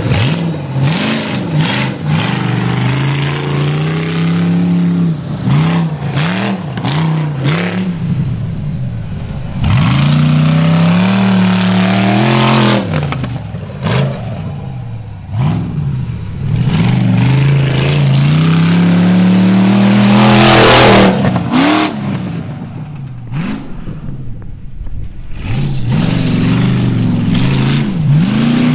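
Rock bouncer's stroked LS V8 engine revving hard and backing off over and over as the buggy is driven flat out on a dirt track, its pitch climbing and dropping with each throttle swing. It is loudest on a long full-throttle pull about twenty seconds in.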